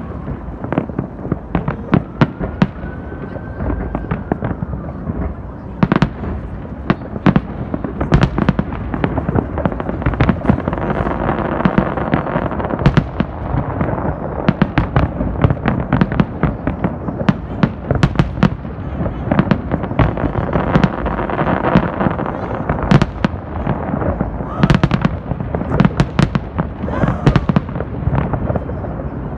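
Rooftop fireworks display: a rapid, unbroken run of sharp bangs, pops and crackles from shells and comets. It grows densest in the middle.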